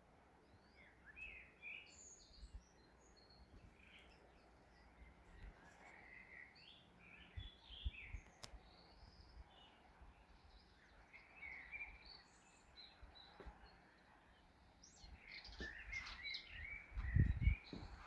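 Faint, scattered birdsong: many short chirps and twitters from several birds. Irregular low thumps come in near the end.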